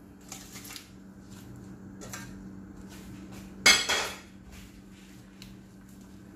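Cooking pot and metal utensils clinking and scraping as the kangkong goes into the sinigang, with one loud clatter about three and a half seconds in, over a steady low hum.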